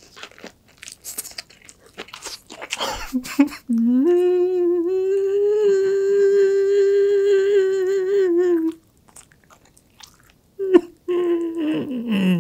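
A man chewing a mouthful of gim-gulttuk, a seaweed-wrapped rice roll soaked in ramen broth, with soft crunching bites. He then breaks into a loud, long wail of crying held on one pitch for about five seconds, and after a short pause a second wail that falls in pitch near the end.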